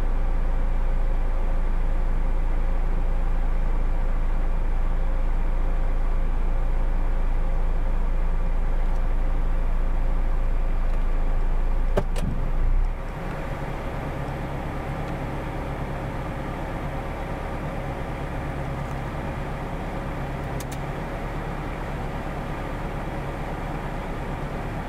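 A vehicle engine idling steadily with a constant hum. A click comes about twelve seconds in, after which the low rumble is somewhat quieter.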